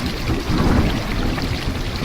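Heavy rain falling steadily, with a deep rumble of thunder rolling underneath it.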